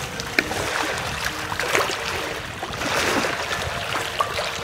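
Water splashing and sloshing with scattered sharp clicks and knocks, as sea urchin shells are handled in a bucket of water.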